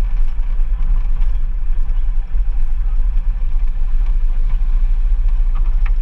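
Motorcycle engine running steadily under a heavy low rumble while the bike rides along, dropping away sharply at the very end.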